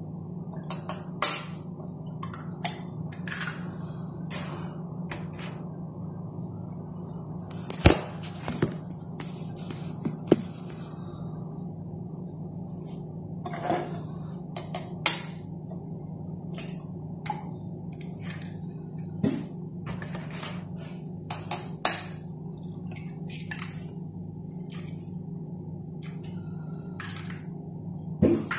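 Eggs being cracked against the rim of a steel tumbler, with a metal spoon tapping and clinking against the tumbler: a series of sharp, irregular taps and cracks over a steady low hum.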